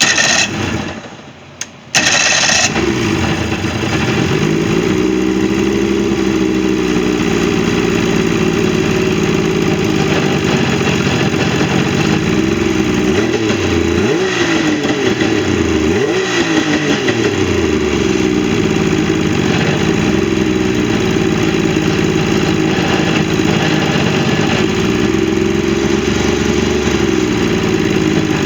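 Searayder jet boat engine starting: a brief burst of cranking, then it catches about two seconds in and runs steadily. Its pitch swings up and down twice about halfway through before it settles back to a steady run, showing that it now starts and runs after a no-start repair.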